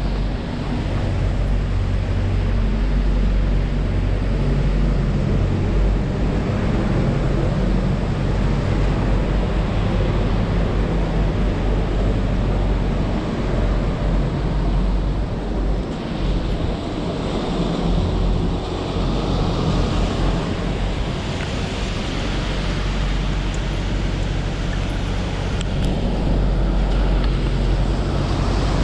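City street traffic running steadily under heavy wind rumble on the microphone; a hiss builds and fades in the upper range about halfway through, like a vehicle passing on the road.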